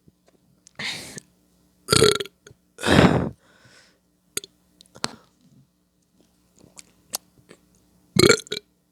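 A person burping four times: a softer burp about a second in, two loud ones at about two and three seconds, the second longer and deeper, and a last loud burp near the end. Small clicks come between them.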